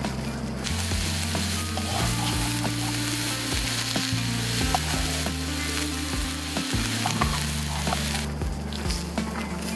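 Food frying in a hot pan, a steady sizzle that starts about half a second in and dies down near the end, over soft background music.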